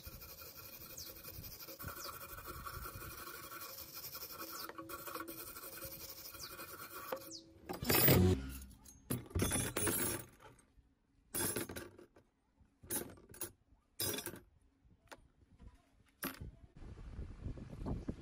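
Metal being scraped by hand for several seconds, then a clatter of small metal parts. After that, single metal clinks a second or two apart as the parts are dropped into a plastic tub, and liquid starts pouring near the end.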